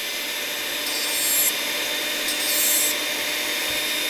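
Foredom flexible-shaft rotary tool running with a steady whine while its abrasive wheel grinds the tooth edges of a steel Muncie 4-speed gear, two short scratching passes about a second apart, deburring and dressing the teeth.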